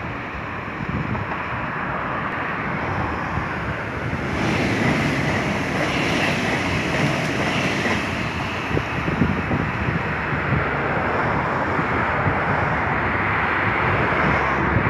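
A Siemens Mireo electric multiple unit passes on the tracks below: a rush of wheel and running noise that swells about four seconds in and eases after about eight seconds. Steady road traffic noise runs underneath.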